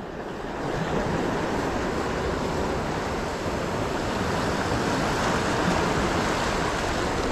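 Ocean surf breaking and washing over jetty rocks: a steady rushing that swells about a second in.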